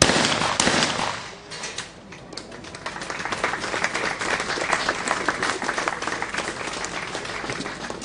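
Two shotgun shots about half a second apart, then applause that builds from about two and a half seconds in and keeps going.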